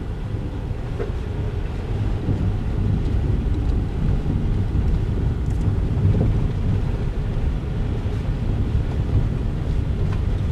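Low, steady road and tyre rumble of a car driving, heard from inside the cabin, getting a little louder over the first few seconds.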